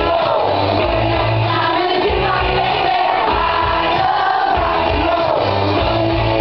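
Loud recorded rock song with a sung lead vocal over a steady pulsing bass beat.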